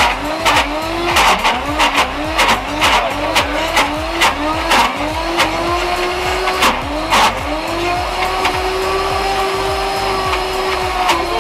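Commercial blender motor running on a thick frozen acai mix while a tamper is pushed into the jar. The motor's pitch dips and climbs back about two or three times a second, with a sharp knock at each dip, as the load on the blades comes and goes. About eight seconds in it settles to a steady whine as the mix runs smoothly.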